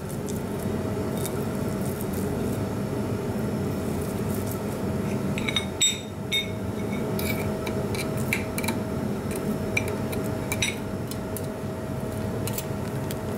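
Metal potato masher and spoon clinking and scraping on a ceramic plate as tandoori paneer pieces are crushed: a few short, sharp clinks over a steady background hum.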